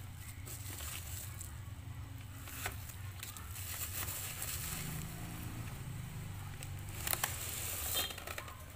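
Plastic bubble wrap crinkling and rustling as hands handle and pull it off a cardboard box, with a few sharp crackles and clicks.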